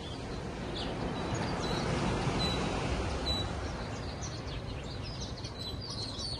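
Outdoor morning ambience: birds chirping and calling over a steady background noise that swells a little in the middle.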